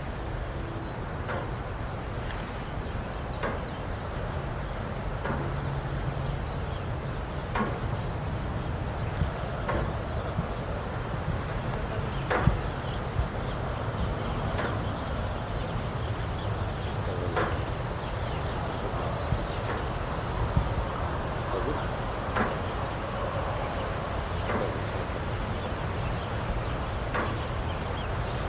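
Outdoor farm ambience: a steady, high-pitched insect chorus over a low rumble, with scattered short knocks every couple of seconds, the loudest about twelve seconds in.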